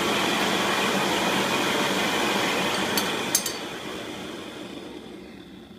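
Electric heat gun blowing with a steady hiss, heating the Loctite-coated clutch hub nut. About three seconds in there are a couple of sharp clicks, and the blower then winds down slowly.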